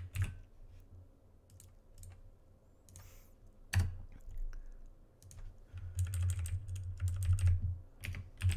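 Typing on a computer keyboard: a few separate key presses, then a quick run of keystrokes about six seconds in.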